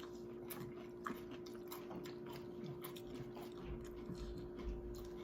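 Crunchy chips being bitten and chewed close to the microphone: a run of small, irregular crackling crunches, over a faint steady hum.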